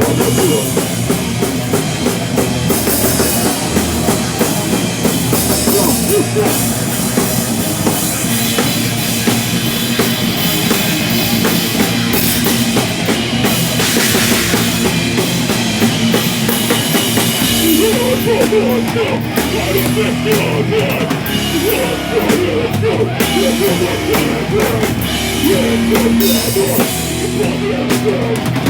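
Live heavy rock band playing at full volume: distorted guitars, bass and a drum kit with busy cymbals, no vocals heard in this stretch.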